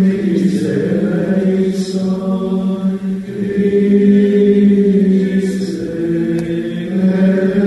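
Male voices of monks chanting plainchant, held long on a nearly steady pitch, with a few soft 's' sounds from the words.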